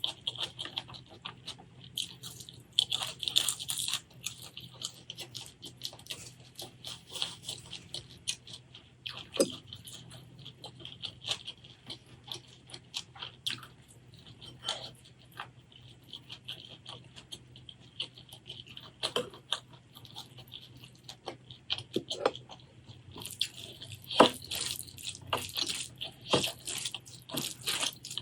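Close-miked eating sounds: wet chewing, crunching and mouth clicks, coming in irregular bursts, busiest near the start and near the end.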